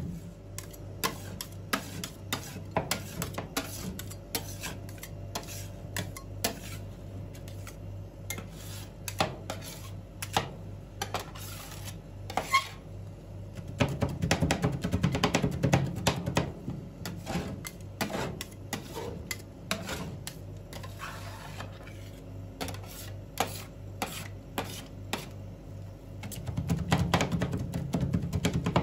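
Two steel spatulas chopping and mashing KitKat pieces into liquid cream on a cold steel rolled-ice-cream plate. The blades make rapid, sharp clinks against the metal, with stretches of heavier scraping and mixing about halfway through and again near the end, over a low steady hum.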